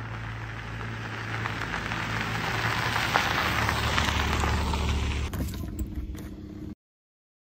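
Kia Seltos SUV driving past on a gravel road: tyres crunching over the gravel with a low engine hum, growing louder as it nears and passes. The sound cuts off suddenly near the end.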